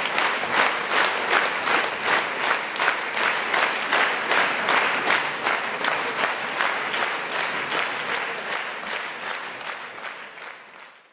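Large concert-hall audience applauding, the claps falling into a steady rhythm of about three a second, fading away near the end.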